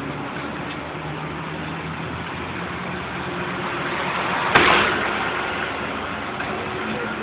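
Engine and road noise of a moving vehicle heard from inside, with one sudden loud knock about four and a half seconds in.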